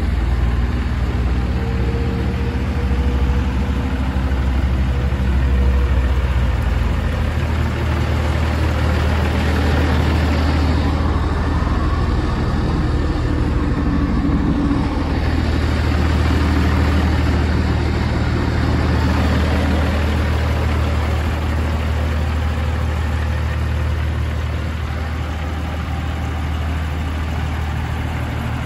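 Mercedes-Benz Unimog UL1700L's six-cylinder diesel engine idling steadily. It sounds fuller for a few seconds around the middle, when heard through the open cab.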